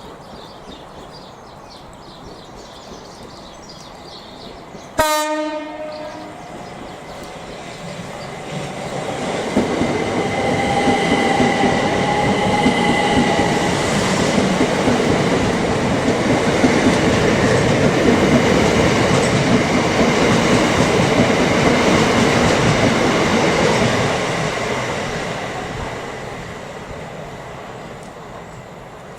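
A train horn gives one short blast. Then a train runs past, building over a couple of seconds, staying loud with a steady rumble and some whine for about fifteen seconds, and fading away.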